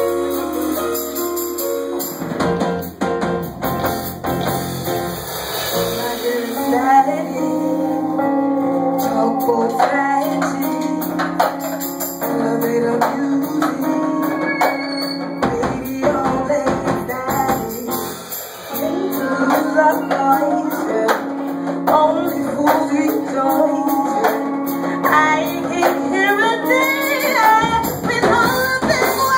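Live band playing music, with held low bass notes under a melody line; the bass drops out briefly about halfway through, then comes back.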